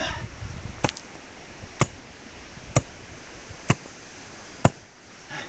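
A digging tool striking into rocky ground as a post hole is dug deeper: five sharp, evenly spaced strikes about a second apart.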